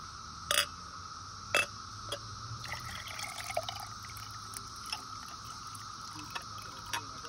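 Liquid poured from a drinking glass into a glass measuring cup, trickling and splashing, with two sharp glass clinks about half a second and a second and a half in. Cicadas drone steadily underneath.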